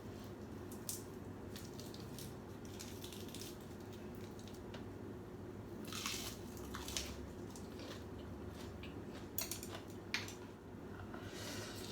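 A person eating a bowl of pho, with several short bursts of chewing and slurping of the noodle soup and vegetables over a steady low hum.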